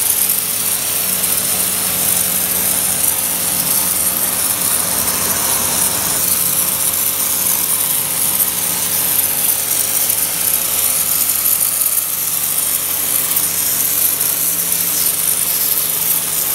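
Pressure washer running steadily, its motor and pump humming under the hiss of the water jet spraying wooden shed siding.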